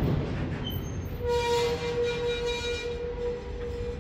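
Double-stack container freight train rolling past, its wheels and cars rumbling on the rails. From about a second in, a steady high tone sounds over the rumble.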